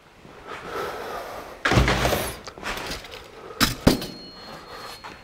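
Bench handling noise: a dull thud about two seconds in, then two quick sharp knocks as a wooden hive shim frame is picked up from the plywood workbench.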